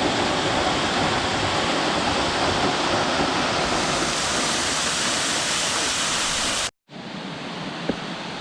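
Waterfall, its falling water rushing loudly and steadily. Near the end it cuts off suddenly and a quieter steady rush follows.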